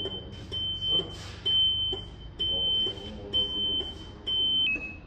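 Electronic beeper sounding a high, steady-pitched beep about once a second, dropping to a lower tone near the end.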